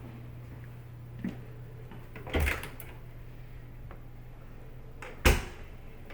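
A few knocks and thumps over a steady low hum: a light knock about a second in, a short clatter around two and a half seconds in, and a sharp knock, the loudest, about five seconds in.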